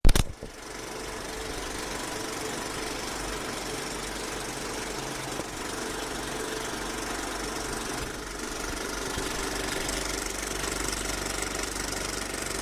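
Old film projector sound effect: a sharp click as it starts, then a steady mechanical whir and rattle that runs on evenly.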